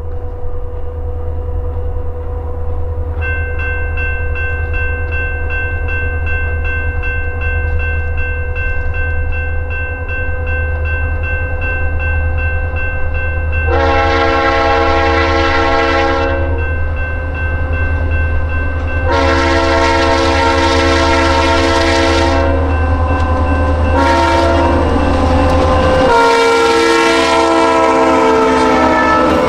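Freight train's diesel locomotives rumbling steadily as they approach, while the lead locomotive's air horn sounds the grade-crossing signal: long, long, short, long. The last long blast is still sounding as the locomotives pass close by.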